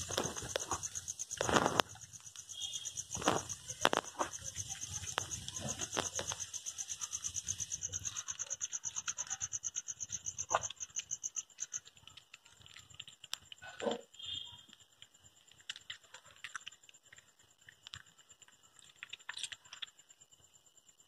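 Cats eating, with irregular chewing and smacking noises. Crickets chirp in a rapid, steady pulsing trill behind them, which grows fainter about halfway through.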